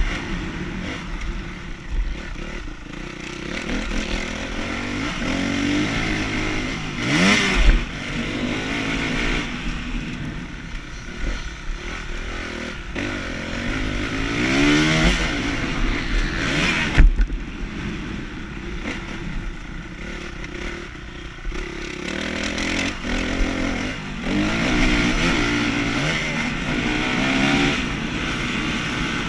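Motocross bike engine revving hard and dropping back as the bike is ridden on a dirt track, its pitch climbing steeply several times as it accelerates, over a steady rush of wind on the on-board camera.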